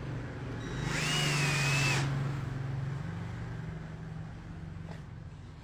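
Ken 12V cordless drill driver running for about a second, with a high motor whine, as it drives a screw, over a steady low hum.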